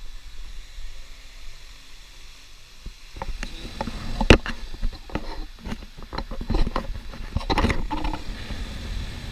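Industrial fan running steadily at low volume. From about three seconds in it is overlaid by a series of sharp clicks and knocks; the loudest comes a little after four seconds in and another cluster near the end.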